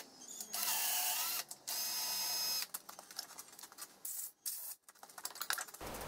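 Bosch cordless drill-driver run in two short bursts of about a second each, its motor whining steadily, followed by scattered clicks and knocks.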